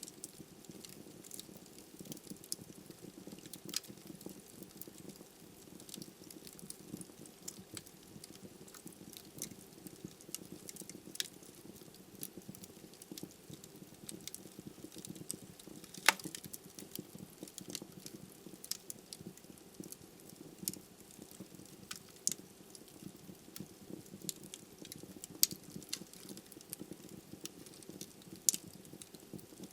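Wood logs burning in a fireplace: a steady low rumble of the flames with irregular sharp crackles and pops. The loudest pop comes about halfway through.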